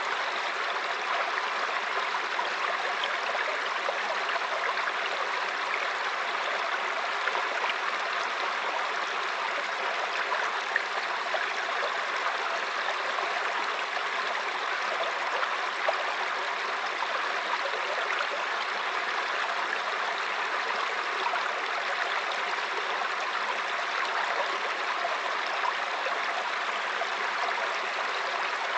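Mountain stream flowing over rocks: a steady rush of water with small splashes and gurgles throughout.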